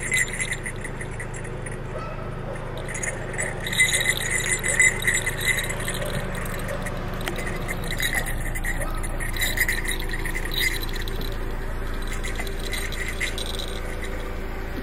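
Small metal jingle bells on the horns of a jester mask jingling in several short spells as the wearer moves, over a steady low hum.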